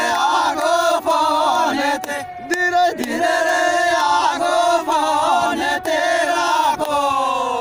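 A group of men singing a Meenawati folk song together, several voices at once with no instruments heard. Near the end the voices hold a long note that slides down in pitch.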